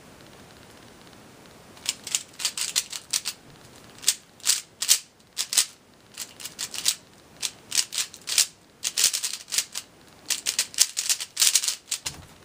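Zhanchi Silk 3x3 speedcube being turned at full speed: rapid clicking and clacking of plastic layers in quick bursts with short pauses between them, starting about two seconds in. Near the end a hand slaps down on the stackmat timer to stop it.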